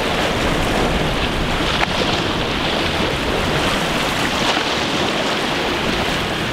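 Steady wind buffeting the microphone, mixed with small waves washing against the rocky shoreline.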